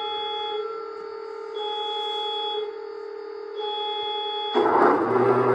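Sound system of a USA Trains SD70 model diesel locomotive, driven by an ESU XL5 sound decoder, playing its start-up sequence through the loco's speaker: a steady hum with a beep about a second long repeating every two seconds, then the diesel engine sound starts up, louder and rougher, about four and a half seconds in.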